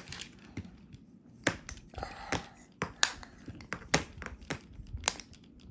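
Plastic Play-Doh roller tool being rolled back and forth over dough on a plastic tray, giving a dozen or so light, irregular plastic clicks and taps.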